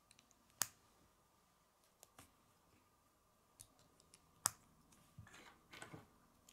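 Plastic K'nex rods and connectors clicking as they are snapped together, a few sharp separate clicks with a short run of rattling and clicking near the end.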